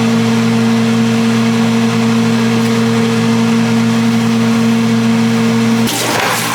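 Steady electric motor hum from a kitchen appliance, one low pitch with its overtones, cutting off abruptly about six seconds in. A rush of noise like a running tap follows.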